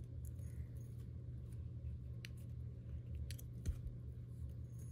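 Faint, scattered clicks of a thin metal chain being handled as its link is hooked onto a grapevine wreath, a few ticks over a steady low hum.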